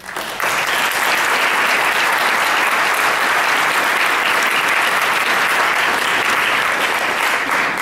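Audience applauding, starting right away, holding steady, and beginning to die down near the end.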